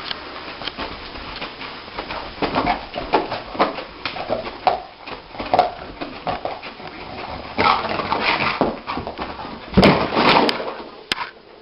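A sleeping dog whimpering and yipping in its sleep, as dogs do when dreaming: a string of short cries, with two louder bunches of them about two-thirds of the way in and near the end.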